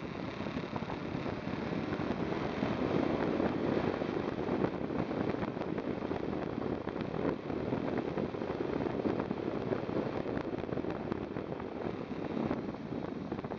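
Wind rushing over the microphone of a moving KTM 990 SMT motorcycle, mixed with the steady run of its V-twin engine, with scattered faint ticks.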